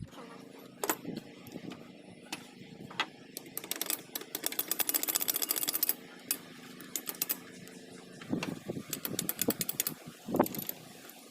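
Rapid metallic clicking and rattling from hand work on a power tiller gearbox, in two runs, the longer about four seconds in, over a steady low hum.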